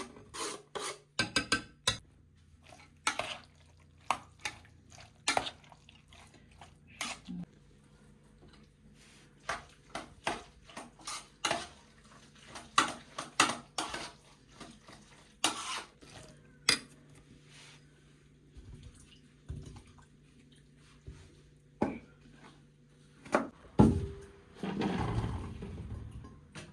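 Dishes and cooking utensils being handled: irregular clinks and knocks, some close together and some spaced seconds apart, with a longer, noisier sound lasting about two seconds near the end.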